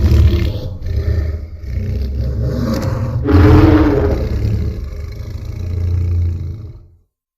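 Custom-made Godzilla roar sound effect: a long, loud roar over a deep rumbling base, which swells again into a second loud cry about three and a half seconds in, then fades and cuts off just before the end.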